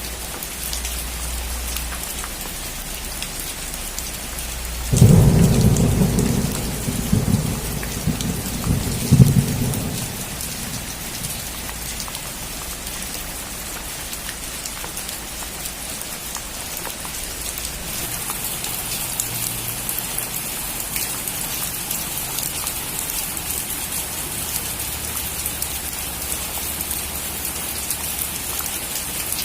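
Steady rain falling on a roof, with a thunderclap about five seconds in that rumbles for some five seconds with a second loud peak before fading. The rain grows a little heavier in the second half.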